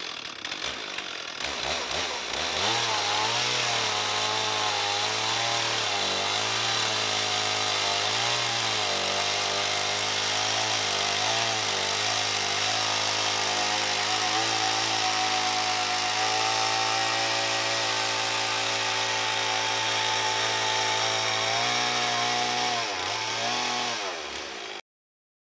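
Stihl two-stroke chainsaw, guided by a pivoting mitre jig, sawing an angled cut through a slab-wood board. The saw comes up to speed about two seconds in, and its pitch wavers as the cut loads it, then holds steady. Near the end the revs drop off and the sound stops.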